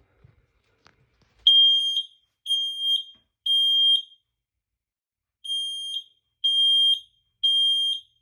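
Smoke alarm sounding under test: a high-pitched beep three times, a pause, then three more beeps. This is the standard temporal-three alarm pattern.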